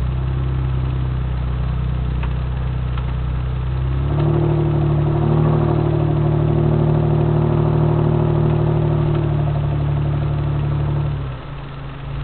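Off-road vehicle's engine running while driving a dirt track, heard from inside the cabin. About four seconds in the revs rise and it runs louder, then it eases off again near the end.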